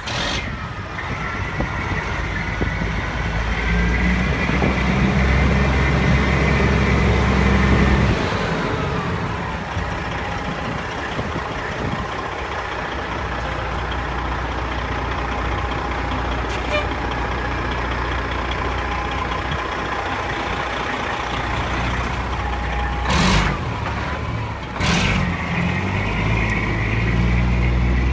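1997 Peterbilt truck tractor's diesel engine running, louder and higher for the first eight seconds or so, then dropping back to a steady idle with a steady whine. Two short hisses come near the end, about two seconds apart.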